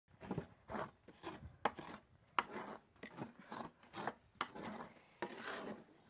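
Hands stirring and rubbing coarse, steaming meal against the bottom of a large metal pan: a dry rasping scrape with each stroke, roughly two strokes a second.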